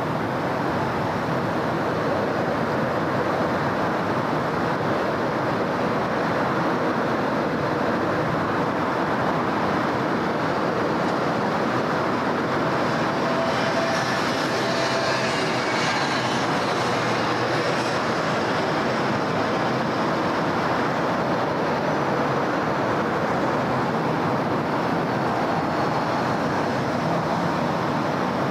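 Steady city traffic noise. Midway through, something passes and brings up a rising-then-fading hiss with a faint whine.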